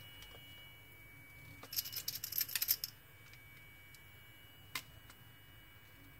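Small hard clicks and rattles of a metal tool prying at the plastic housing of a beard trimmer: a quick burst of clicks about two seconds in, then one lone click near the end.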